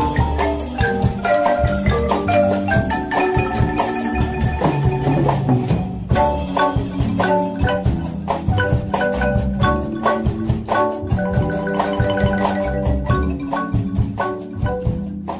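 Guatemalan marimba ensemble playing a lively piece: quick runs of struck wooden-bar notes over a steady low bass line.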